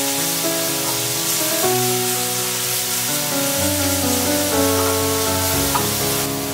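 Background music of held notes that change pitch, over a steady sizzle of sliced mushrooms frying in coconut oil in a cast-iron pan.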